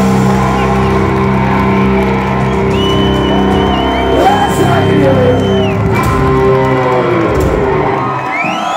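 Live rock band holding a long sustained chord at the end of a song, with shouts and whoops from the crowd and a long high whistle over it in the middle. Near the end the music drops away and crowd whistles and cheering begin.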